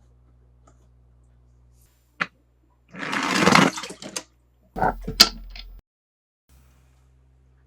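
Handling noises from unboxing toys: a click about two seconds in, about a second of rustling near the middle, then a few sharp clicks and taps.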